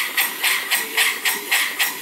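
PM Research 6Ci model steam engine running steadily on compressed air, its exhaust puffing in an even rhythm of about four hissing beats a second.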